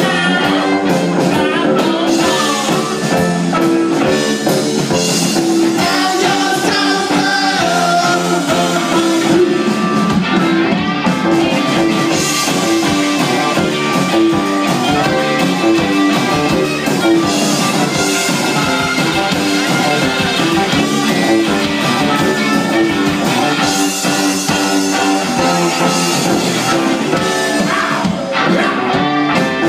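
A rock band playing live, with singing over electric guitar and a drum kit, at a steady loud level.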